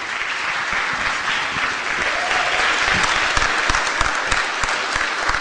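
Audience applauding steadily, with dull low thumps scattered through.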